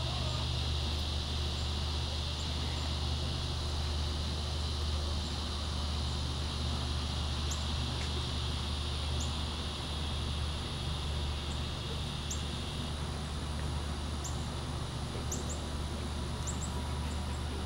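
Outdoor ambience of insects buzzing steadily at a high pitch, the buzz dropping away about thirteen seconds in, over a steady low rumble, with a few short high chirps scattered through the second half.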